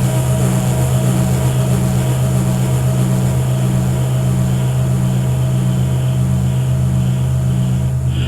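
Dark ambient industrial drone: a steady low hum under evenly throbbing bass tones and a hissing high layer.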